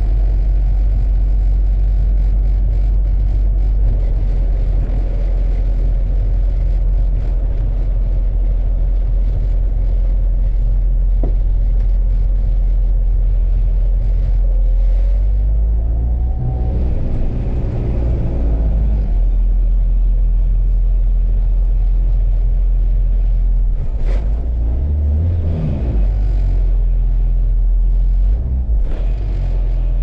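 K-series-swapped Honda Civic EF sedan driving, heard from inside the cabin: a steady low engine and road rumble, with the engine revving up and dropping back as it is run through the gears about halfway through and again near the end.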